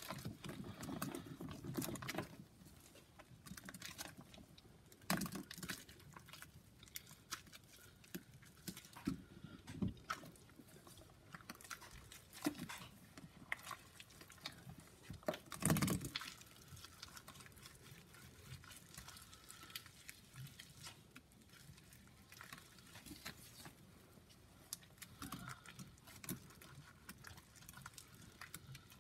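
Faint wet squishing and squelching of a thick paste of Comet cleanser and Pine-Sol worked by gloved hands in a stainless steel sink. Irregular soft crackles and smacks come throughout, with the loudest squelch a little over halfway through.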